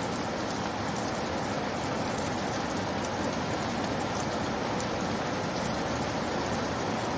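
Steady rain: an even hiss with faint ticks of single drops.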